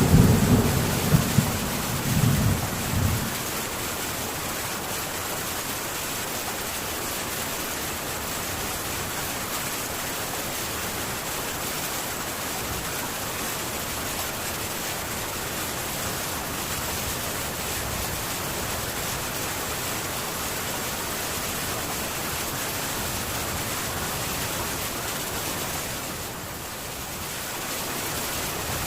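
A low rumble of thunder at the start, dying away within about three seconds, then heavy rain falling steadily on a metal tin roof.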